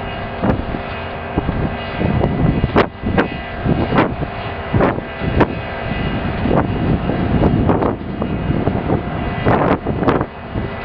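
Hydraulic excavators tearing down a concrete building: diesel engines running steadily under irregular crashes and bangs of concrete and metal debris breaking and falling, one or two a second.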